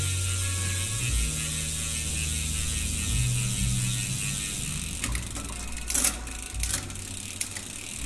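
Bicycle drivetrain spun by hand on a work stand: the chain runs over the rear cassette while the freehub's pawls buzz steadily, followed by a few sharp clicks and knocks in the second half.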